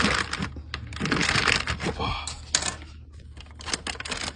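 Shipping packaging being pulled open by hand: a dense run of crackling, rustling and sharp clicks.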